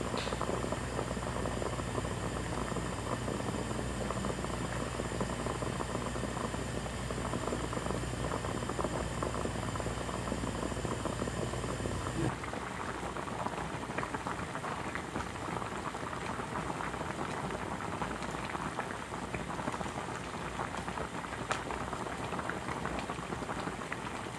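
Soy-sauce braising liquid with pork shoulder and green onions boiling hard in an uncovered pot on high heat: a steady bubbling with many small pops. A low steady hum under the first half stops abruptly about halfway through, and from there the bubbling is busier and more crackly.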